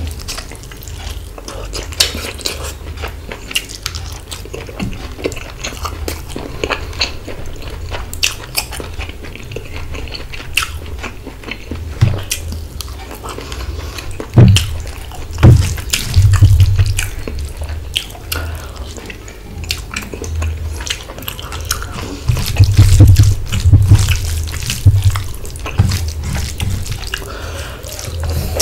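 Close-miked eating sounds of a mouthful of rice and curry being chewed: wet chewing, lip smacks and mouth clicks over low thuds, louder in bunches about halfway through and again near the end.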